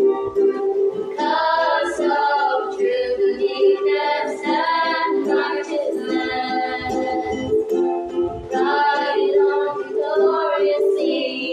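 Three young female voices singing a hymn together, accompanied by ukulele strumming.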